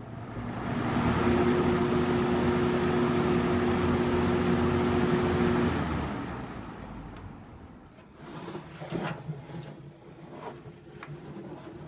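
Vintage Galaxy 20-inch box fan running on its high speed: a rush of air over a steady motor hum. About six seconds in the hum stops and the air noise dies away as the blades spin down, followed by a few light clicks.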